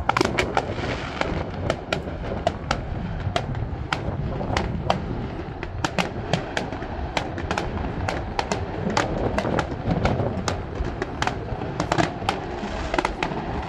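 Aerial fireworks display going off: a steady run of sharp bangs and crackling reports, about three a second, over a steady low noise.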